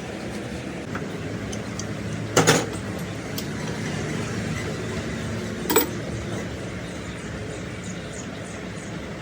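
A car engine running steadily at idle, with two loud, sharp metallic clanks about two and a half and six seconds in.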